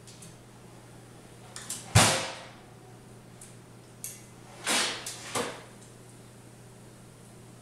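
A beagle up on its hind legs at a kitchen counter, its paws and the things it nudges knocking on the countertop: one sharp knock about two seconds in, then a click, a short scraping clatter and another knock a little past the middle.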